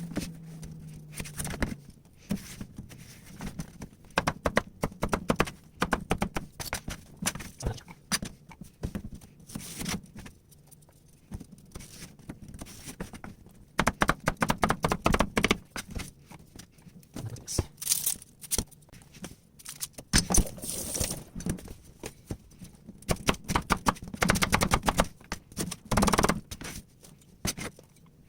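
Kitchen knife chopping and cutting on a cutting board: quick runs of sharp taps and knocks with pauses between, as vegetables and fish are cut up for kinilaw.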